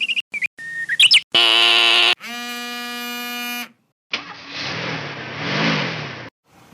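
A quick run of cartoon sound-effect clips, one after another. First come fast high beeps, then a short rising whistle about a second in, then two held buzzing tones. About four seconds in, a rushing, engine-like noise runs for about two seconds.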